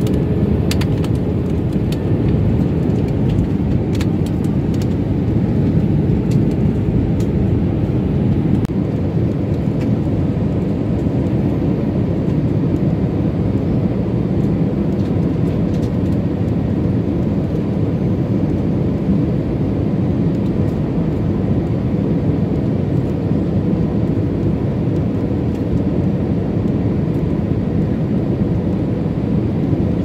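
Airliner engine and airflow noise heard inside the passenger cabin: a steady, deep roar that holds at an even level throughout.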